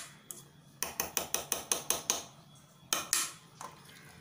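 A spoon clinking against a metal pressure cooker: a quick run of sharp taps about a second in, then a few more near the three-second mark.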